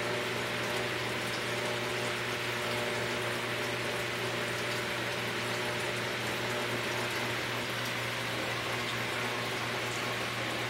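Large saltwater aquarium's pumps and filtration running: a steady rush of moving water over a constant low motor hum.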